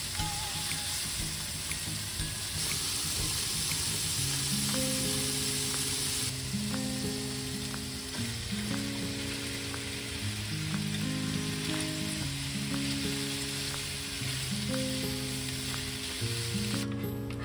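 Sliced pork sizzling in a frying pan while it is stirred with chopsticks, with light ticks of the chopsticks on the pan; chunks of kabocha squash are tipped in about halfway and stirred through. Soft background music of held notes comes in a few seconds in.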